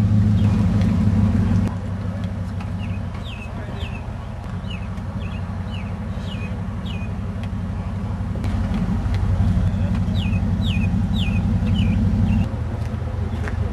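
A vehicle engine running with a low steady hum that drops about two seconds in, rises again past the middle and drops near the end, while a bird chirps in repeated short, quickly falling notes.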